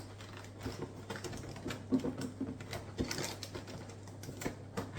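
Cardboard box being pried and worked open by hand: scattered small taps, scrapes and crinkles of cardboard, over a low steady hum.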